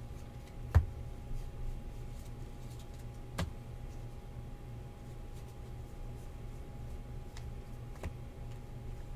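Baseball trading cards being handled and set down on stacks on a tabletop: a few sharp taps, the loudest about a second in, others after about three and a half and eight seconds, with faint card ticks, over a steady low hum.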